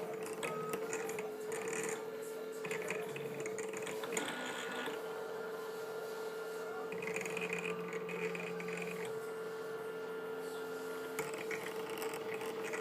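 Stepper motors of a Sumpod Basic 3D printer whining as the print head moves, the pitch changing with each move, over a steady hum.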